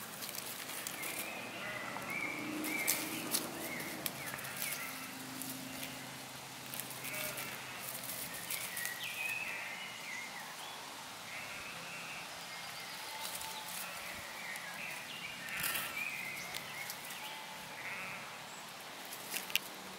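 Red fox cubs giving short, high, wavering whining calls at irregular intervals, with scattered sharp clicks and crackles.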